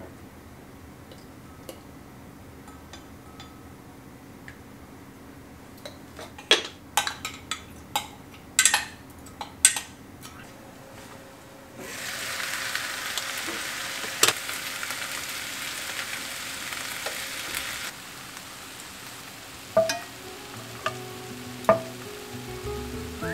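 A utensil clinking sharply against a glass measuring jug as a sauce is stirred, followed about halfway through by a steady sizzle of vegetables frying in a pot that runs for about six seconds and then stops. A few soft knocks come near the end as pieces of chicken are set into the pot.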